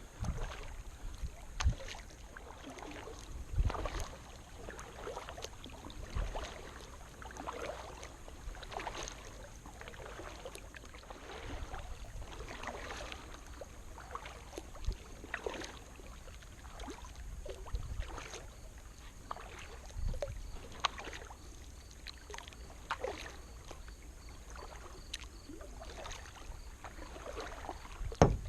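Kayak paddle strokes in the water with splashing and water lapping against the plastic hull, an irregular run of splashes every second or two with a few sharper knocks.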